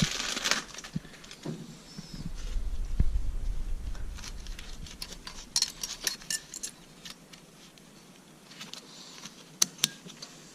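New metal brake pad hardware clips being handled and snapped into a disc-brake caliper bracket: light metallic clinks and rattles, with two sharp clicks near the end as a clip snaps into place. Some rustling in the first couple of seconds.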